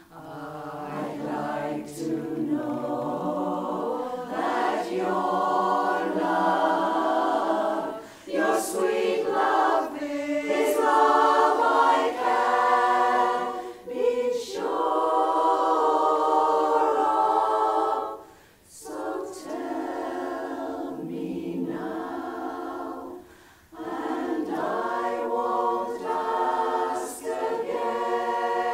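Women's chorus singing a cappella, many voices together, in phrases broken by short pauses for breath.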